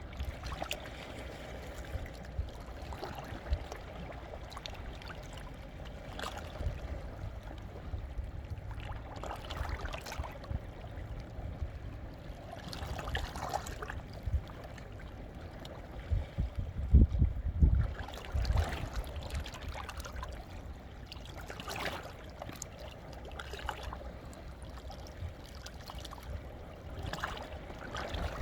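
Small sea waves washing and splashing among shoreline rocks, with trickling water and a low rumble underneath. The splashes come every second or two, and a louder low thud comes a little past halfway.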